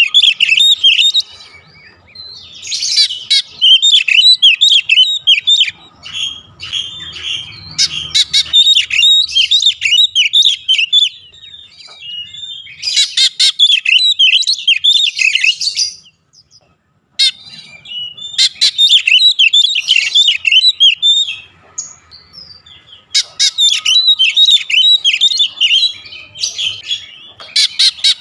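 Oriental magpie-robin (kacer) singing: loud, fast runs of high chirps and trills in bursts of one to three seconds, broken by short pauses, with a brief silence a little past halfway.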